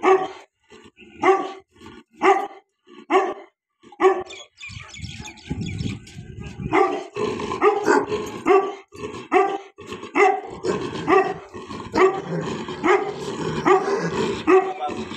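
Large white bully-type dog barking repeatedly. The barks come about once a second at first, then quicken to about two a second after the middle.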